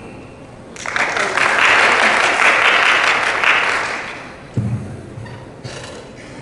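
Audience applauding in a large hall, starting about a second in and dying away around four seconds later, followed by a brief low bump.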